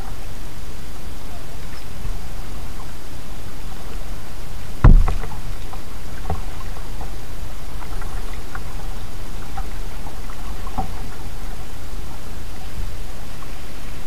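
Kayak paddling: water dripping and splashing off the paddle in small scattered drops over a steady hiss. A single loud thump about five seconds in is the loudest sound.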